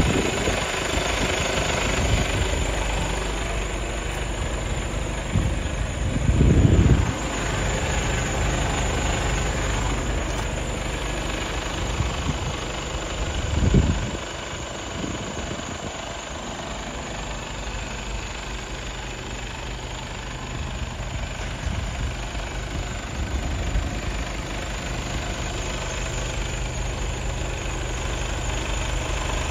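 Mercedes-Benz Actros 1843 tractor unit's 12.8-litre straight-six diesel idling steadily. There are two brief louder low rumbles, about six and fourteen seconds in.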